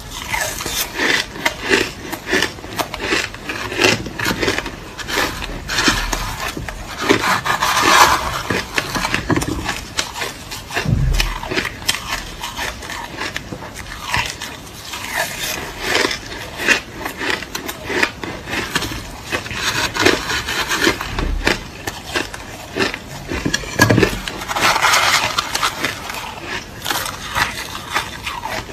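Close-miked chewing and crunching of crushed ice, a dense run of sharp crunches with a few dull low thuds mixed in.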